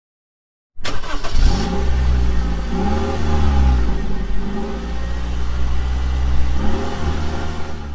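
An engine running with a deep rumble, its pitch rising and falling several times as it revs. It starts suddenly about a second in, after silence, and cuts off abruptly.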